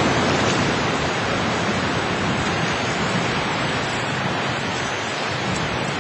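Steady rush of surf washing onto a sandy beach, an even noise with no distinct strokes.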